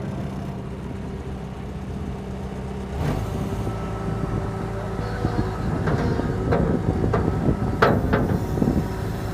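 Bobcat skid-steer loader's diesel engine running steadily, then rising to a louder, rougher run about three seconds in as it works. This is followed by a string of knocks and clatters as the load is tipped into the dumper.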